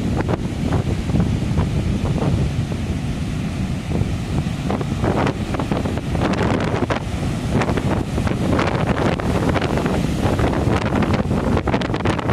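Ocean surf breaking and washing up a sandy beach, under strong wind rumbling and buffeting on the microphone.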